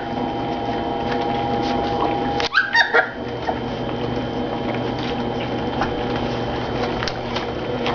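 Three-and-a-half-week-old goldendoodle puppies eating puppy food from shared dishes, a steady busy sound, with a couple of short, high rising squeaks from the pups about two and a half to three seconds in.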